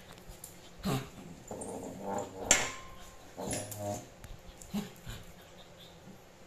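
A chihuahua puppy and a larger dog play-fighting, with growls and short high yips in several bursts. The loudest is a sharp one about two and a half seconds in.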